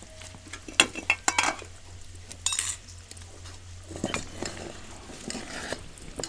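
A metal cooking utensil clinking and scraping against a pan as meat is stirred, in several separate strikes about a second apart.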